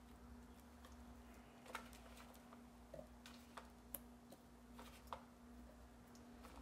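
Faint, irregular soft taps and plops of carrot chunks being set one by one into a slow cooker among potatoes and broth, over a faint steady hum.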